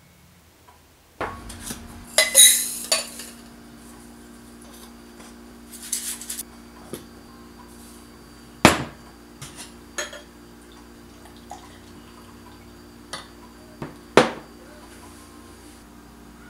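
Stainless steel cocktail shaker and glassware being handled: a series of metallic and glassy clinks and knocks, loudest about two and a half, eight and a half, and fourteen seconds in, over a steady low hum.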